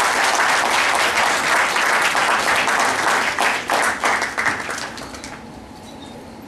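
Audience applauding, the clapping fading away about five seconds in.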